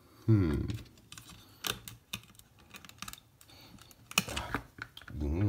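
Irregular sharp plastic clicks and snaps as the circuit board is pried out of an ELRO RM120c smoke detector's plastic housing by hand. A short vocal sound comes just after the start, and another near the end.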